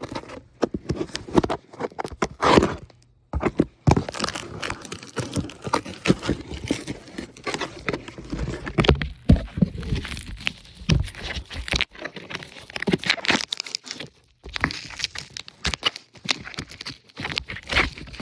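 Packaging being torn and handled during an unboxing: irregular tearing, crinkling and scraping with many clicks and knocks.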